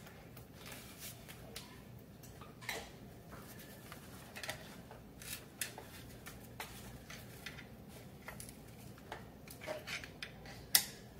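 Light, irregular metal clicks and knocks as a scooter's rear suspension arm is wiggled back and forth to work it off its square-ended shaft, with one sharper knock near the end.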